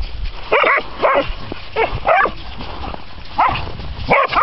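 A dog barking repeatedly, about six short barks, with a pause in the middle of the string.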